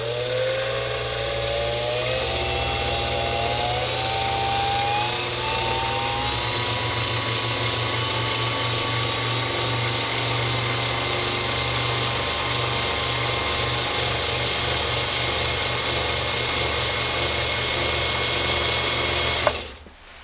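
Husqvarna Viking Type 21 sewing machine running flat out on its closed-case 1.5 amp motor: a whine that rises in pitch over the first several seconds as it spins up, then holds steady until it stops suddenly near the end.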